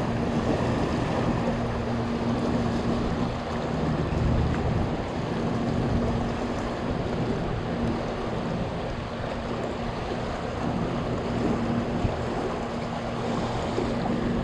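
Steady rush of water pouring through a dam's open floodgates, with a low steady hum that comes and goes underneath.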